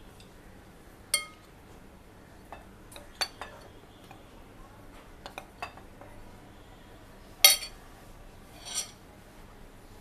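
Metal spoon clinking and tapping against glass mixing bowls as sifted dry ingredients are scraped from one bowl into another. Scattered sharp clinks, the loudest about seven and a half seconds in, and one that rings briefly near the end.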